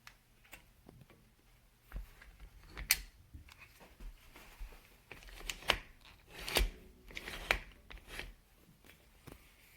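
Handling noises from a video tripod being worked with: a string of sharp clicks and knocks, about eight in all, with rubbing and scraping between them, busiest in the middle.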